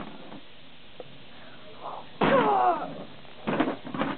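Plastic wrestling action figures being knocked against a toy wrestling ring, with a cluster of sharp knocks near the end and a single click about a second in. About two seconds in comes a short, loud cry that falls in pitch.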